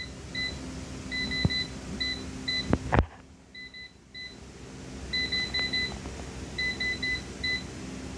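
Short electronic beeps in quick clusters from an air fryer's control panel as its buttons are pressed to set temperature and time, over a steady low hum. A single knock comes about three seconds in.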